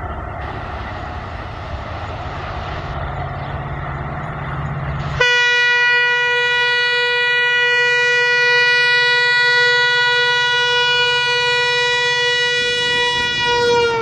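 EMD WDP4D diesel locomotive's two-stroke engine humming as the train approaches. About five seconds in, its horn sounds one long, steady blast lasting about nine seconds, and its pitch slides down near the end as the locomotive goes by.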